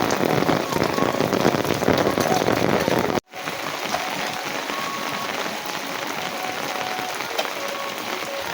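Steady rain falling. It drops out for an instant about three seconds in, then goes on with less low rumble.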